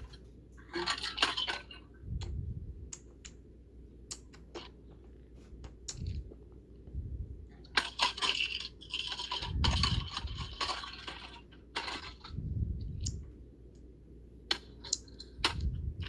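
Small metal parts of a ceiling fan clattering, clicking and scraping as the fan is being bashed apart, with dull thumps every two to three seconds and two longer stretches of rattling.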